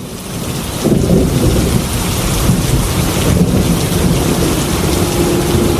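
Heavy rain falling with a low rumble of thunder, fading in over the first second.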